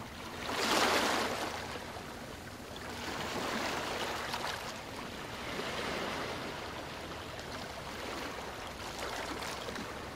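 Ocean surf: waves breaking and washing in and out, with a loud surge about a second in and gentler swells every two to three seconds after.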